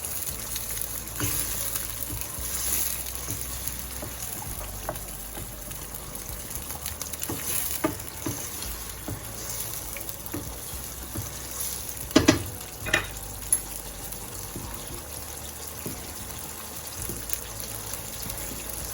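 Tomato sauce sizzling and bubbling in a frying pan while being stirred, with a spoon knocking against the pan now and then, the loudest knocks about twelve seconds in.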